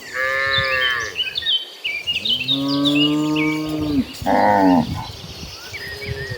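Cattle mooing: a short high-pitched call at the start, a long lower moo in the middle, and another short call right after it. Small bird chirps sound in the background.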